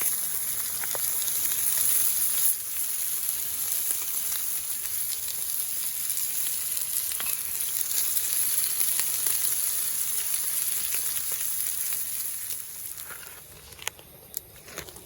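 Leaves burning in a campfire: a steady high hiss with scattered small crackles, which dies down near the end.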